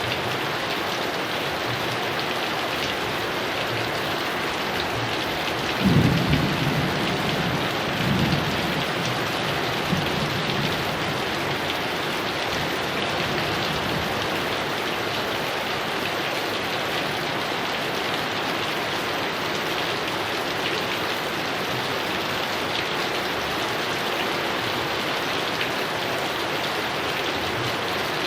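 Heavy rain falling steadily. About six seconds in a clap of thunder breaks out and rumbles on for several seconds, fading by about ten seconds in.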